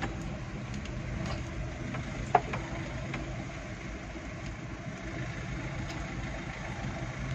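A vehicle's engine running steadily, heard from inside the vehicle as it sets off, with one sharp click a little over two seconds in.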